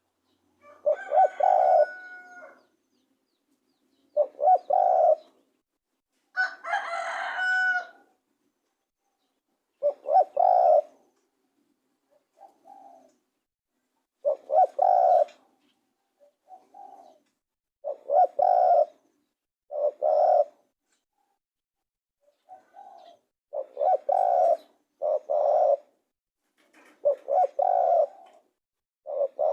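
Spotted dove cooing: short phrases of a few low notes, repeated again and again with silent pauses between them. A rooster crows once about seven seconds in.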